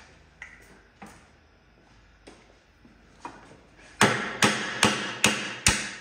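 Sledgehammer striking a welded bracket on a steel motorcycle frame: a few light taps, then about four seconds in five hard ringing blows in quick succession, about 0.4 s apart. He is knocking off a tab that has been part-cut so that it snaps off along the cuts.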